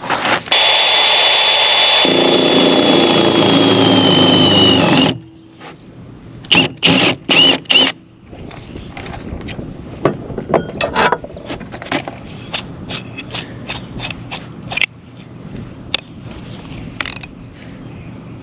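Electric drill boring into a wooden beam to countersink holes for carriage bolts. It gives a steady whine for about five seconds, with the pitch sagging slightly under load near the end, then several short bursts. After that come scattered clicks and knocks.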